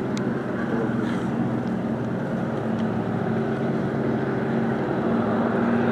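Boeing Stearman biplane engine droning steadily in flight, growing slightly louder near the end.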